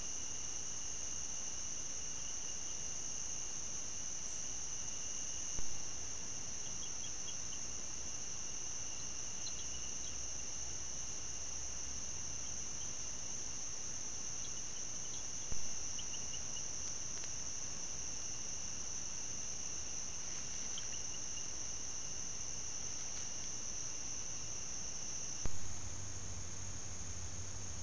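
Steady high-pitched chorus of night insects over a light hiss, with three short pops about ten seconds apart.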